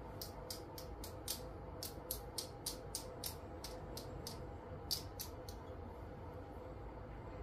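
Light, sharp clicks of small hand tools working on an ECU circuit board, about three a second, pausing and then returning briefly around five seconds in, over a steady faint hum.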